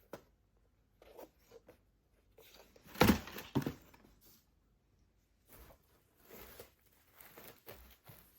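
Handling noises from unboxing a pair of football boots: the box and its paper wrapping being opened and moved, with a pair of louder knocks about three seconds in.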